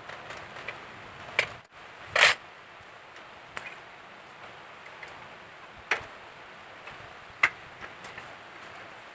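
A handful of short, sharp clicks and knocks, about six spread over several seconds, as a rear wheel is fitted into a mountain bike's frame and rear dropouts. The loudest, about two seconds in, is a slightly longer rattle. A low steady hiss runs underneath.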